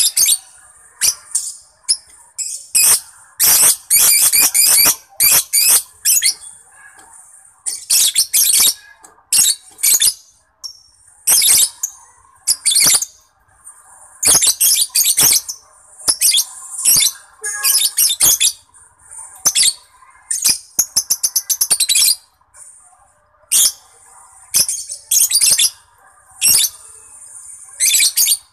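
Lovebird singing: rapid, shrill, chattering bursts in short clusters with brief pauses between them.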